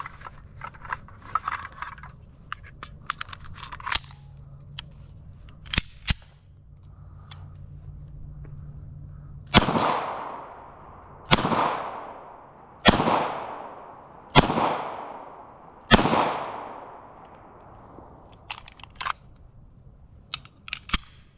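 Five shots from a Ruger P89 9mm semi-automatic pistol, about a second and a half apart, each with a long echoing tail. Light clicks come before and after the string of shots.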